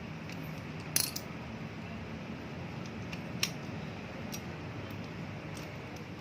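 Small metal parts and hand tools clinking against each other while a bicycle pedal axle is worked on. A sharp double clink about a second in is the loudest, followed by scattered lighter metallic ticks over a steady low hum.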